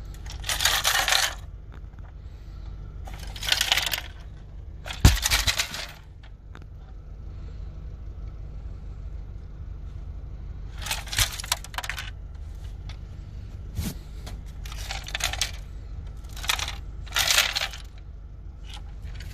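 About eight short bursts of rattling and clinking from the bullet-holed cable modem as it is handled, with broken bits loose inside its plastic case.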